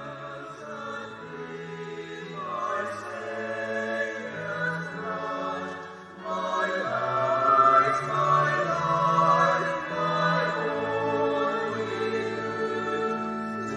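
A choir singing slow music in long held notes, growing louder about six and a half seconds in.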